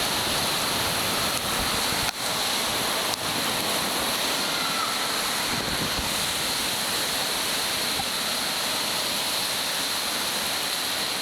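Steady rushing and splashing of water at a waterpark, an even hiss with no let-up, with a brief knock about two seconds in.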